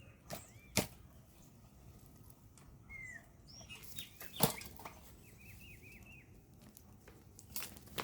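A few sharp knocks of a spade working hard, dry ground around cassava roots, the loudest about halfway through. Birds chirp in short bursts of quick rising-and-falling notes between them.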